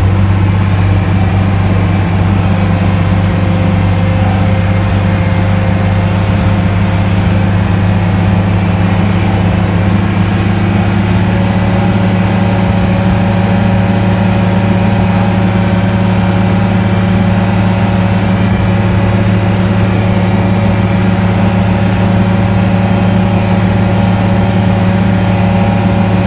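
A large vehicle engine running steadily at a constant speed, with a strong, unchanging low hum.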